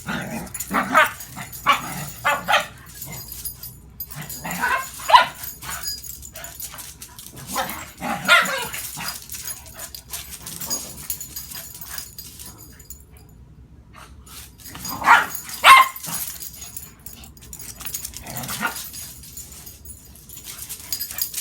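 Dogs play-fighting, barking and yipping in short clusters of sharp bursts with quieter gaps between them.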